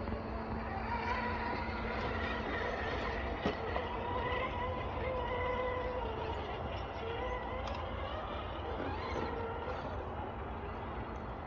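Electric motor and gear whine of an RC scale rock crawler (Vanquish VS4-10) crawling over rocks, the pitch wavering up and down with the throttle. A single sharp click about three and a half seconds in.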